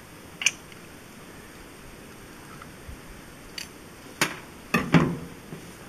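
A knife cutting into a block of ballistic gelatin on a box top: a few scattered sharp clicks and knocks. The loudest are near the end, the last a clack with a dull thud.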